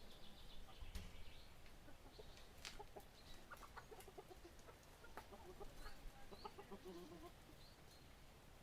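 Chickens clucking faintly, a run of short calls from about three seconds in to about seven seconds, with faint high chirps of small birds here and there.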